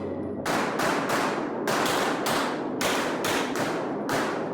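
Rapid 9 mm Glock 19 pistol fire, about a dozen shots, mostly as quick pairs, each shot ringing out in the echo of an indoor range. The first shot comes about half a second in.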